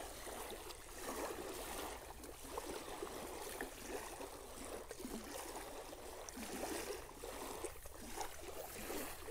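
Small lake waves lapping and washing against shoreline rocks, faint and steady.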